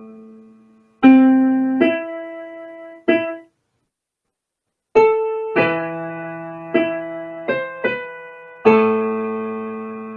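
Background piano music: a slow, sparse melody of single notes that ring and fade, with two pauses of silence between phrases.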